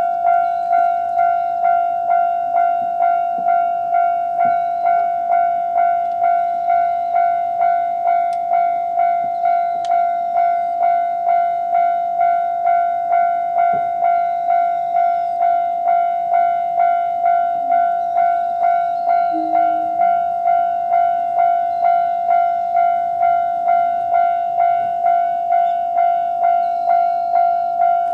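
Japanese railway level-crossing alarm sounding: an electronic crossing bell repeating evenly spaced strikes over a steady ringing tone, at its normal sound setting.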